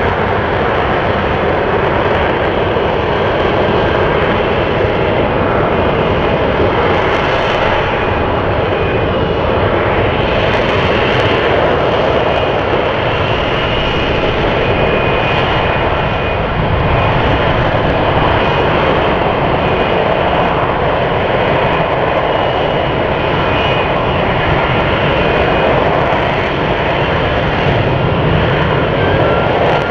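F-35B's F135 jet engine and shaft-driven lift fan running at high power to hold the jet in a STOVL hover: loud, steady jet noise with faint thin whining tones above it.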